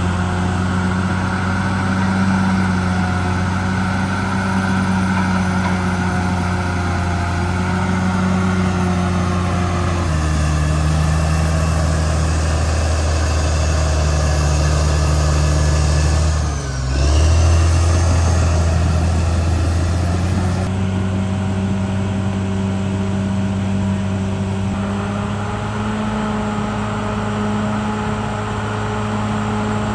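Diesel engine of a CAT D6R XL bulldozer running steadily under work. Its pitch drops about a third of the way in, it dips briefly a little past the middle, and it rises again later.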